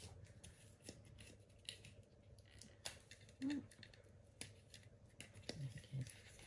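Faint, scattered clicks and scratches of fingers working at the metal lid of a Funko Soda can to open it.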